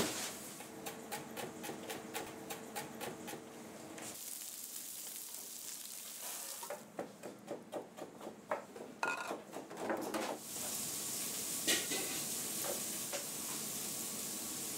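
Restaurant kitchen at work: rapid light clicks and clinks of utensils and dishes, then knocks and scrapes of a ladle against a metal bowl as sauce is served out. A steady hiss fills the last few seconds.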